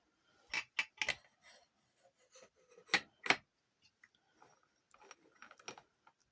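Irregular clicks and taps of small hard objects being handled, with a pair of sharper knocks about three seconds in.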